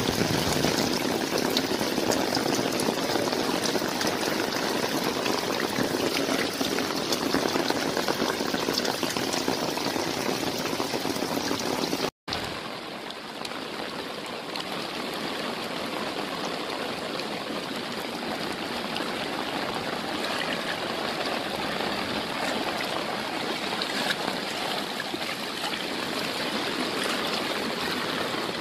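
Heavy rain pouring down steadily, a dense continuous hiss of falling water. About twelve seconds in there is a brief dropout, and after it the rain goes on slightly quieter and duller.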